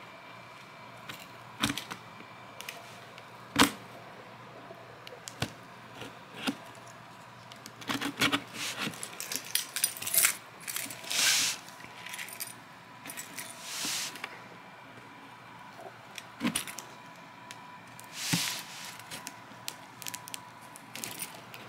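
A taped cardboard shipping box being handled by hand: scattered taps and knocks, with several longer scraping rubs that are busiest around the middle.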